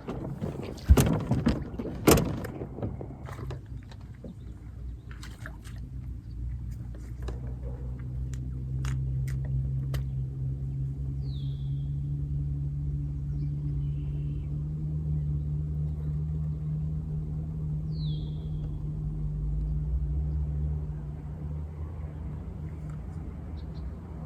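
Boat motor running with a steady low hum, louder from about eight seconds in and easing near the end, after a few sharp knocks at the start. Two short, high falling chirps sound over it.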